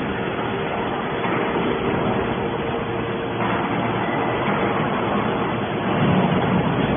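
Hydraulic baler running: steady hum of its motor and pump over a noisy hiss, swelling slightly about six seconds in.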